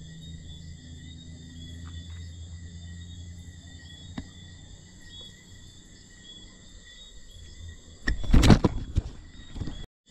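Night chorus of crickets and other insects, a steady high chirping with a repeating chirp, over a low rumble. About eight seconds in, a loud rustle lasting about a second and a half drowns the chorus.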